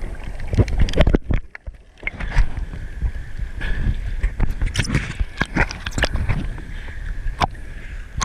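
Water splashing and sloshing around a GoPro in its waterproof housing as it moves in and out of the water, with irregular knocks and clicks over a steady low rumble. It goes briefly quieter a little over a second in.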